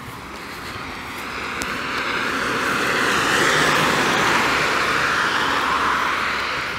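Road traffic passing close by: a van and a car drive past on asphalt. The tyre and engine noise swells to a peak about halfway through, falls slightly in pitch and fades toward the end.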